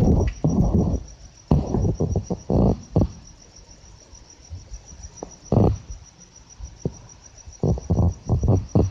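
A cricket chirping: a steady, high, evenly pulsed trill that never stops. Several loud bursts of low rumbling noise break in over it, at the start, two to three seconds in, once more in the middle, and again near the end.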